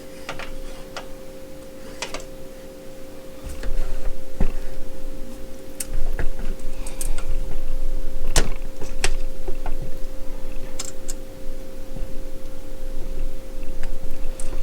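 Handling noise: scattered clicks and knocks of small metal parts and boxes being moved about, with a low rubbing rumble from about four seconds in, over a steady electrical hum.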